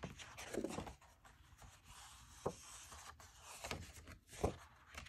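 Quiet handling of kraft cardstock cards on a craft mat: soft paper rubbing and sliding, with a few light taps in the second half.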